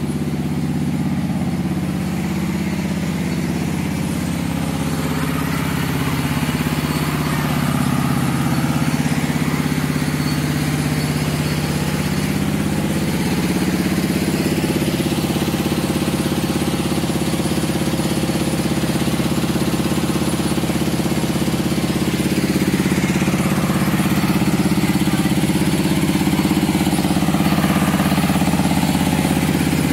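An engine running steadily at an even speed, with no revving.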